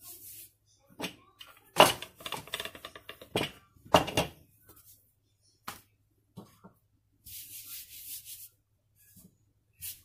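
Hand rubbing dry flour over a thin rolled-out sheet of samosa dough, a soft brushing hiss near the start and again about seven seconds in. Between about two and four seconds a run of sharp knocks and clatter, the loudest sounds here.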